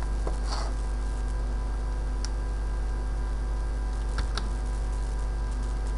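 Steady low electrical hum with a set of faint steady tones above it, and a few faint isolated clicks.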